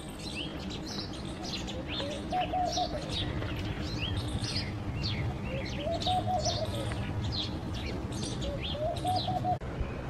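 Small birds chirping constantly. Three times, about three seconds apart, comes a low, soft hooting phrase of a few quick notes, the Eurasian hoopoe's 'oop-oop-oop' call.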